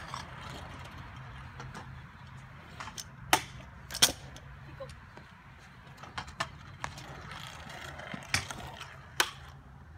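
Freestyle scooter wheels and decks clacking on concrete as riders do tricks: a few sharp impacts, the loudest about four seconds in, and others later on.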